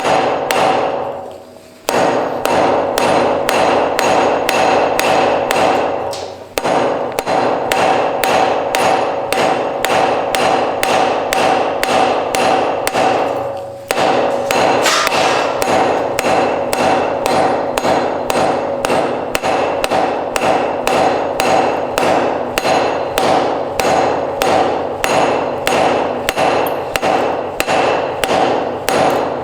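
Hammer blows forging iron on an anvil, a steady rhythm of about two strikes a second, each ringing on. The hammering breaks off briefly near the start, about six seconds in and about fourteen seconds in.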